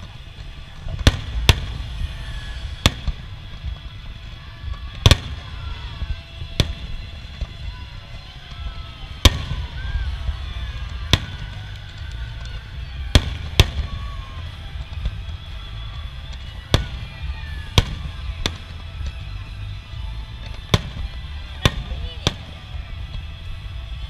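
Aerial fireworks shells bursting in sharp, irregular bangs, roughly one every second or two, over a steady low rumble.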